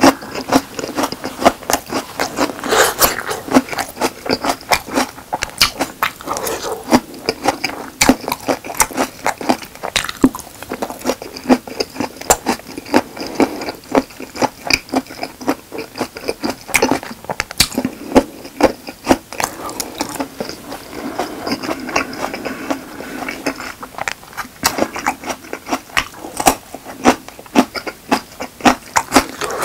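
Close-miked chewing and biting of chungmu gimbap and its spicy squid and radish kimchi side dishes: a dense, irregular run of wet mouth clicks and short crunches.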